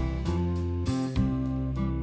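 Background music: acoustic guitar with a steady bass line and a regular beat.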